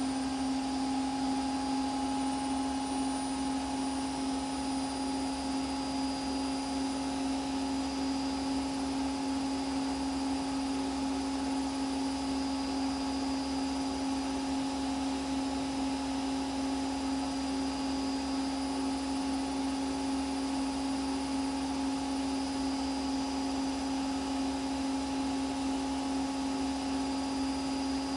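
Washing machine running, a steady motor whine over an even whirring noise that holds unchanged.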